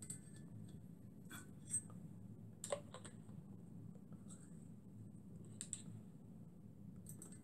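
Faint scattered clicks and light taps of small objects being handled, with two sharper clicks about two and three seconds in, over a low steady hum.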